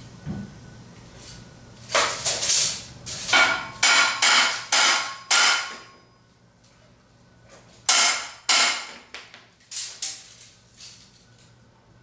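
Hammer blows on steel frame tubing, each with a short metallic ring: a quick run of about eight blows starting about two seconds in, two more a couple of seconds later, then a few lighter taps near the end.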